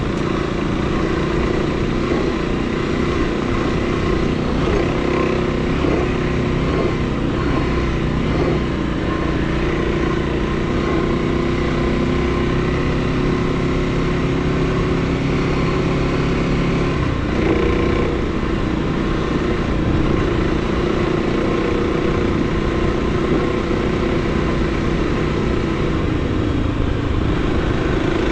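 Motorcycle engine running steadily as the bike is ridden off-road. Its pitch shifts with the throttle, dipping and rising again about two-thirds of the way through.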